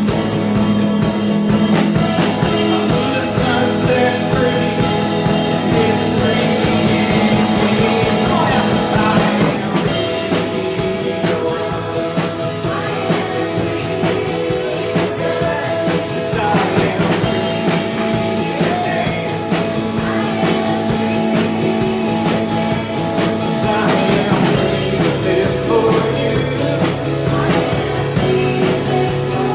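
Live worship band playing a song with singing, over guitar and drum kit.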